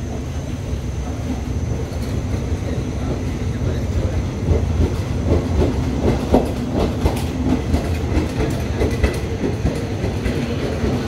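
Thai passenger train's carriages rolling past the platform as the train pulls out of the station: a steady low rumble with wheels clicking over the rail joints, the clicks coming thick from about four seconds in.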